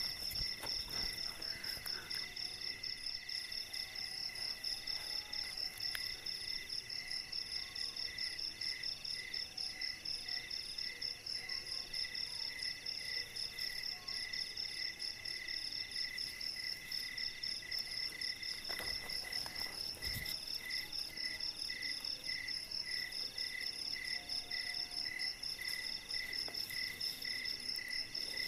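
Chorus of night insects: several steady, pulsing trills at different pitches that keep going without a break. A few faint knocks come through underneath.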